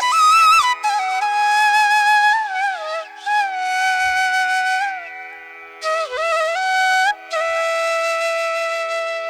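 Background music: a flute plays a slow melody of long held notes that bend and slide between pitches, over a steady drone.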